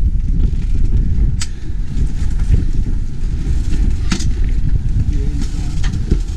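Wind buffeting the microphone in a steady low rumble, with a few sharp clicks about a second and a half and four seconds in.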